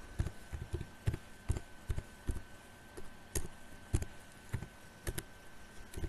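Typing on a computer keyboard: single keystroke clicks at an uneven pace, about two or three a second, as a word is typed out.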